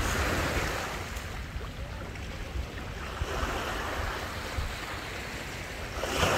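Sea waves washing onto a stony shore, swelling and fading in rolling surges, with the biggest surge near the end. Wind rumbles low on the microphone throughout.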